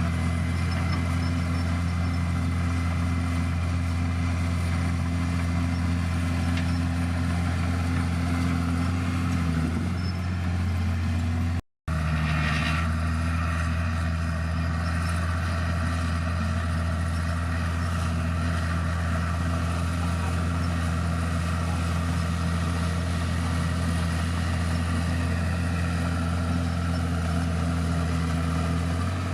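Heavy diesel engine of a bulldozer running steadily, its pitch sagging briefly about a third of the way in. The sound cuts out for an instant near the middle.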